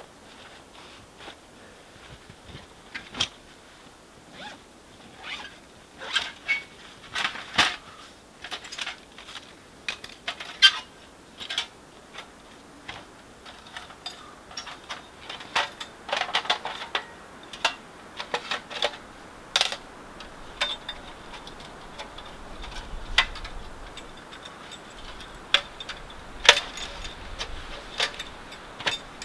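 Camping gear being unpacked and handled: irregular metallic clinks, knocks and rustles, busiest in the middle stretch.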